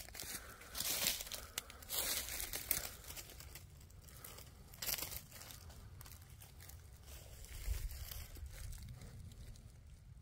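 Footsteps crunching and rustling through dry fallen leaves on the forest floor, an uneven series of rustles that is loudest in the first few seconds and thins out later.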